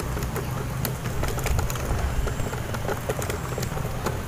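Outdoor background rumble on a handheld phone microphone, with scattered light clicks and taps while walking.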